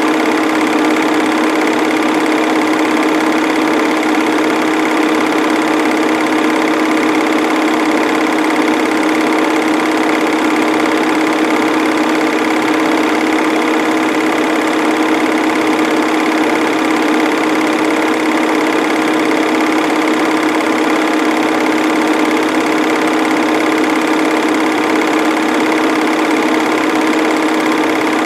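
Film projector running steadily: an unchanging motor hum with the mechanical whir of the film transport.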